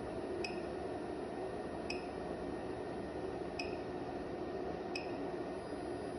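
Steady electrical hum and hiss from bench electronics, with four short, high electronic beeps about a second and a half apart.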